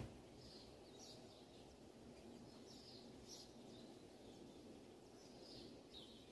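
Near silence: faint steady room tone with faint high chirps about once a second, and a soft click right at the start.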